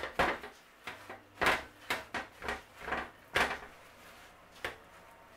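Kitchen paper patting and rubbing a wet, descaled sea bass dry: a string of irregular soft dabs and rustles, about ten in the first four and a half seconds, then quieter.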